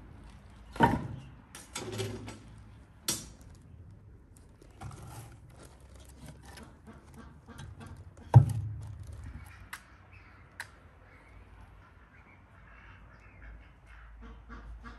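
Split firewood logs set and dropped into a small steel wood stove: a few sharp wooden knocks and clunks against the metal firebox, the loudest about eight seconds in, then a couple of light clicks.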